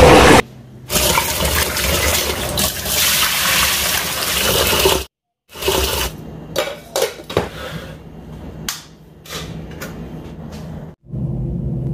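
Tap water running into a stainless steel bowl of rice in a steel sink while a hand swishes the grains to rinse them. After a short break, a series of sharp clicks and knocks as the pot is set into an Aroma rice cooker and its lid is put on.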